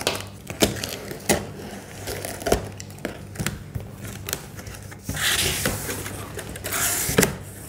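Cardboard box being opened by hand: scattered taps and clicks on the cardboard and packing tape, then two longer rasps of cardboard tearing and scraping, about five and seven seconds in, as the flaps come open.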